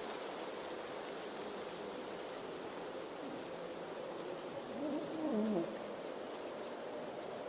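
Blizzard wind blowing steadily with a faint whistling howl. About five seconds in, a brief louder wavering sound glides down in pitch.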